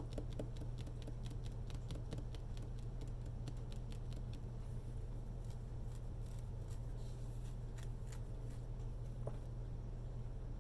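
Tarot cards being handled, a run of light clicks and snaps that is dense for the first few seconds and then thins out, over a steady low hum.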